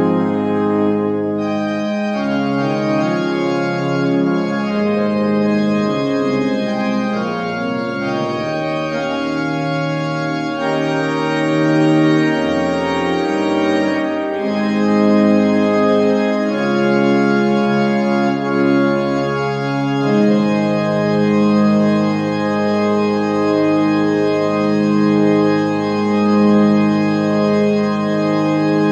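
Organ playing a hymn in slow, held chords that change every second or two.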